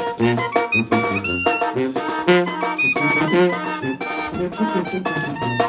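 Mexican brass band (banda de viento) playing an upbeat tune, with brass carrying the melody over a steady pulsing bass line.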